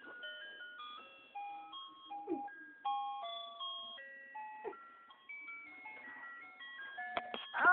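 Background music: a slow, simple tune of held notes, one pitch after another.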